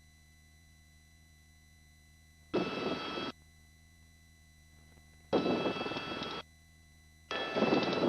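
Helicopter cabin noise heard through the headset intercom: the voice-activated mic gate opens three times, each for about a second, letting in the helicopter's engine and rotor noise with steady whining tones, and cuts back each time to a faint low hum.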